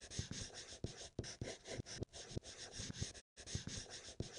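A quick, uneven series of short knocks, about four or five a second, with a brief break about three seconds in.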